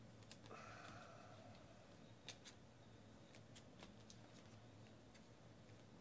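Near silence with faint, scattered clicks and ticks of trading cards being handled and flipped, plus a brief faint hum about half a second in.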